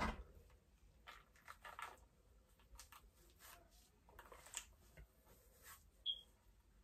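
Faint, short swishes of a bristle hairbrush being drawn through gel-coated curly hair, several strokes spread out, after a brief knock right at the start. A short high squeak comes about six seconds in.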